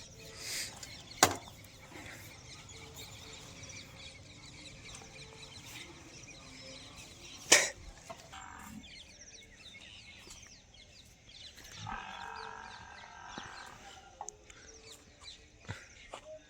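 Two sharp knocks about six seconds apart over low background noise with faint high chirping.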